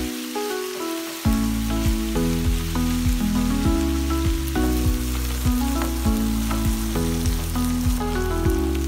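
Bitter melon slices frying in a pan, a steady sizzle, under background music whose bass and steady beat come in about a second in.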